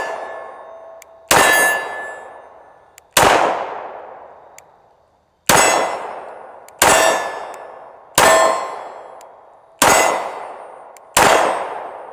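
Walther Creed 9mm pistol fired in slow, deliberate single shots, seven in all, about one and a half to two and a half seconds apart. Each shot rings out in a long fading echo.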